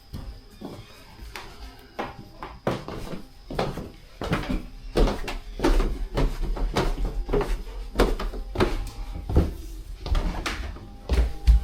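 Footsteps on old wooden floorboards: a walking run of hollow knocks and thumps at roughly one to two a second, heavier from about a third of the way in.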